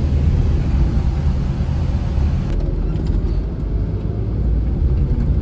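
Steady low rumble of a bus on the move: engine and road noise.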